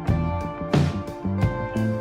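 Background music with a steady beat: plucked and bowed string instruments over regular drum hits.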